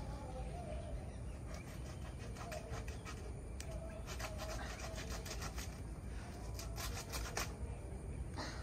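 A fresh banana leaf rustling and tearing as it is pulled off the plant by hand: a run of short crackles and rips, thickest in the middle of the stretch.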